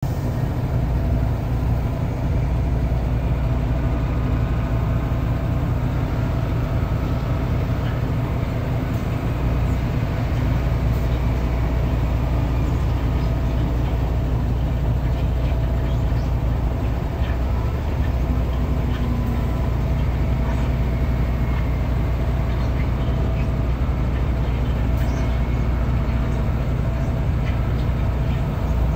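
Heavy diesel engine running steadily: an even low rumble with a few faint steady tones above it.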